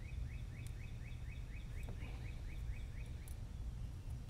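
A bird chirping repeatedly: about fifteen short rising chirps, roughly four a second, that stop about three seconds in, over a steady low hum.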